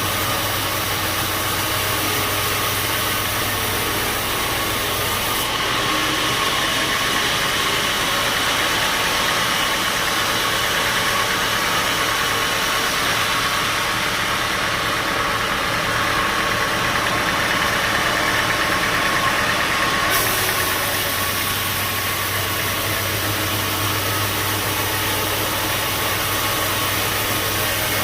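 Band sawmill machinery running steadily: a motor's constant hum under a broad hiss. From about six seconds in to about twenty seconds in the sound shifts, with more mid-pitched hiss and less very high treble.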